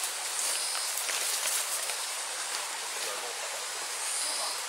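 Steady rustling and crackling of dry leaves, bamboo and twigs being brushed aside and trodden on as people push through dense undergrowth. Two faint, short high-pitched calls sound about half a second in and near the end.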